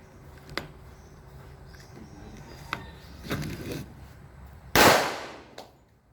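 A single gunshot about five seconds in, a sharp report that dies away over about a second. A few fainter clicks come before it.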